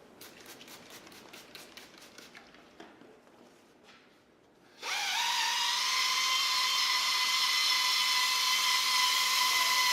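Faint clicks, then about five seconds in a power drill starts, rising briefly in pitch and settling into a steady high whine as it spins a 1000-grit Trizact foam sanding disc for wet-sanding a plastic headlamp lens.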